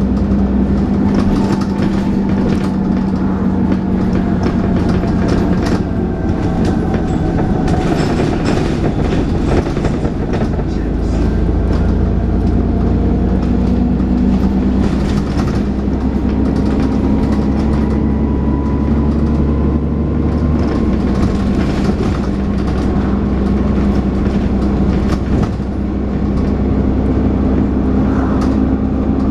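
Dennis Trident 2 double-decker bus's diesel engine and driveline under way, with a whining 'hoover' note that rises slowly with speed and the engine working hard ('thrash'). The engine note shifts several times as the gearbox changes gear, over a steady run of body rattles and knocks.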